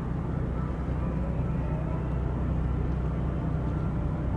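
Steady low engine rumble of a ship, with a constant hum of several low tones underneath.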